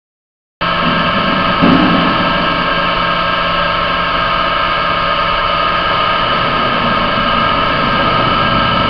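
Steady machinery hum with several fixed tones over a rushing noise, typical of a laboratory flume's pump and the water it drives through the channel. There is a brief louder bump about a second and a half in. It starts abruptly just after the start and cuts off suddenly.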